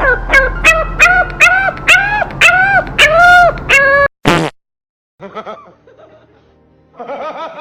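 A pet animal giving rapid, high-pitched yelping calls, about three a second, each rising and falling in pitch and growing longer. The calls break off about four seconds in with a short loud burst and a pause. Fainter calls follow near the end.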